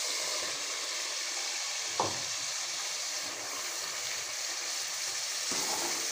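Onion-tomato spice masala sizzling steadily in hot oil in a pan as raw minced meat is added to it, with a short knock about two seconds in.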